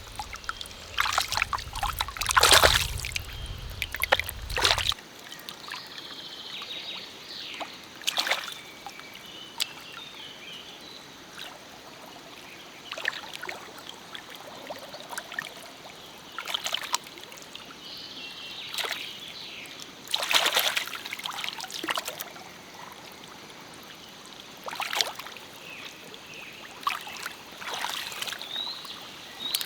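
Shallow stream water splashing and trickling in irregular bursts every second or two, as hands disturb the water, over a steady running-water background.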